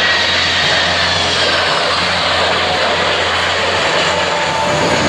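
Boeing 747-400F's four jet engines roaring steadily on a low flyby, with a faint falling whine in the roar. No backfire bangs.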